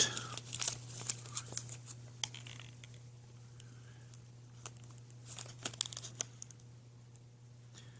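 Eternabond seam tape and its backing crinkling and crackling in short bursts as the tape is handled and stretched into place, most busy near the start and again around the middle. A steady low hum runs underneath.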